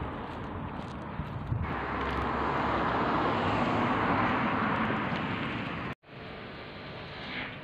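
Street noise with a vehicle passing, its tyre hiss swelling and fading over a few seconds. About six seconds in it cuts off suddenly to quieter indoor room tone.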